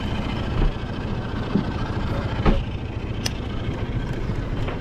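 Small boat's outboard motor idling steadily, with a few light knocks and clicks over it; the loudest knock is about halfway through.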